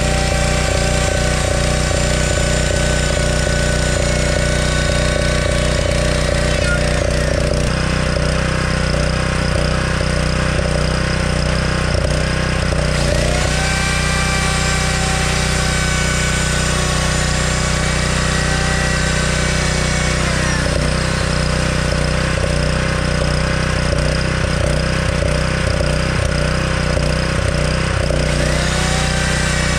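Electric router whining at speed as it runs along the edge of a board, winding down about a quarter of the way in, spinning up again near the middle, winding down, and spinning up once more near the end. Underneath, a portable gas generator runs steadily.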